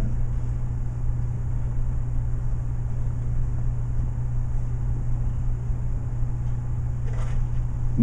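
Steady low hum under an even hiss of room noise.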